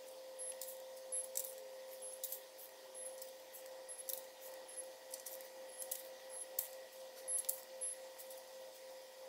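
Torque wrench ratcheting on the cylinder head bolts of an LS3 V8, giving irregular light metallic ticks and clicks several times a second, with a few sharper clicks a little past the middle, over a steady hum.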